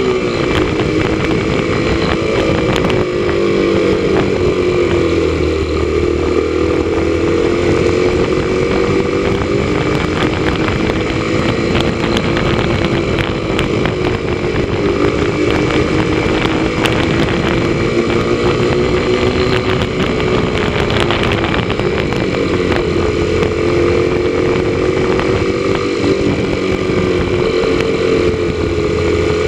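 Motorcycle engine running at cruising speed, its pitch easing down and back up a few times as the throttle changes, with road and wind noise.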